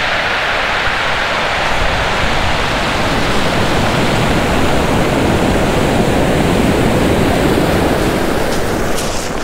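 Ocean surf breaking and washing up a pebbly beach: a loud, steady rush of white water, with a few faint high ticks near the end.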